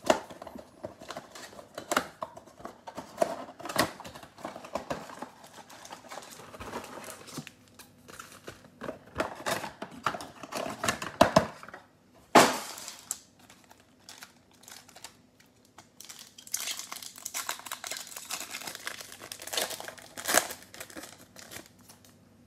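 Cardboard mega box of Panini Select trading cards being opened and its tray pulled out, then foil card packs crinkling and rustling as they are handled, with one sharp crack about halfway through.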